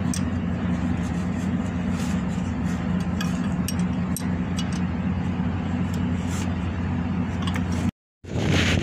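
A steady low machine hum with a few light clicks, cutting out for a moment near the end.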